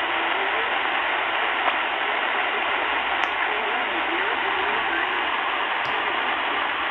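Shortwave single-sideband voice transmission, the RAF weather broadcast on 5450 kHz upper sideband, received on a Sangean ATS-909X2 and played through its loudspeaker. A faint voice lies under steady, loud hiss.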